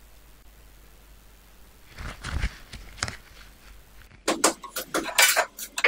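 Metallic clinks and rattles of corrugated stainless-steel flexible water hoses and their hex-nut fittings being handled: a few light clinks about two seconds in, then a busy run of clinking and jangling from about four seconds.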